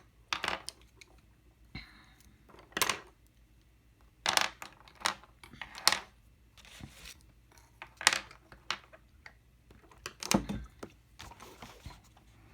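Colored pencils clicking and clattering against each other and against a hard surface as they are picked up and set down: a run of sharp, irregular knocks with faint rustling between them.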